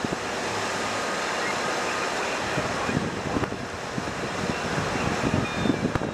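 Wind rushing over and buffeting the camera microphone on a moving vehicle, a steady rush with irregular low gusts that grow stronger near the end.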